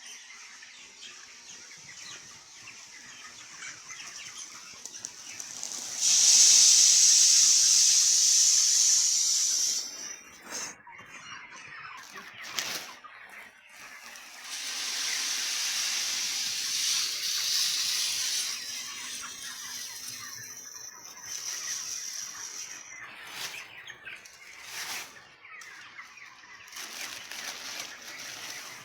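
A loud, even hiss that starts suddenly about six seconds in and lasts about four seconds, then returns for a similar stretch around the middle, with a few short sharp sounds between.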